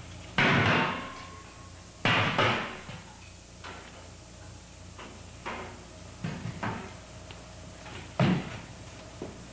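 Folding chairs knocking and clattering on the stage floor as the dancers move with them: a loud crash about half a second in and another about two seconds in, lighter knocks between five and seven seconds, and a sharp one just after eight seconds.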